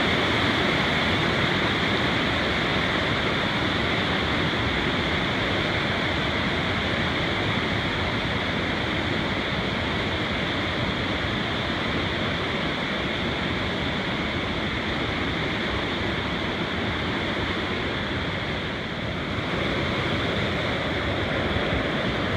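Steady rushing of a mountain creek tumbling over cascades, a constant even roar of water with no breaks.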